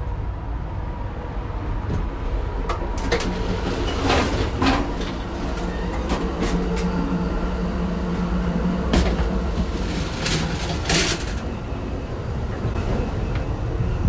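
Amtrak Superliner passenger car running on the rails, heard from inside: a steady low rumble with scattered sharp knocks and rattles, most of them in the middle of the stretch.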